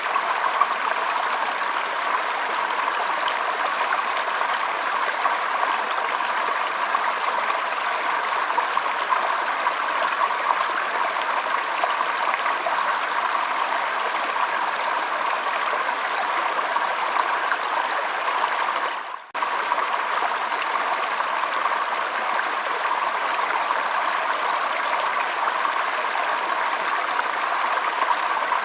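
Flowing water making a steady, even rush, with a momentary break about two-thirds of the way through.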